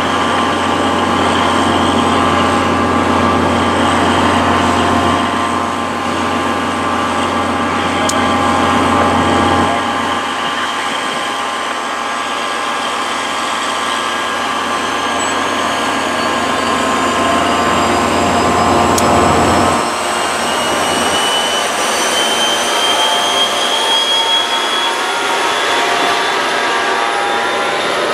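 NJ Transit EMD GP40PH-2B diesel-electric locomotive running at a stand, its engine note shifting twice, then pulling its train away. A rising whine builds in the second half as the passenger coaches roll past and pick up speed.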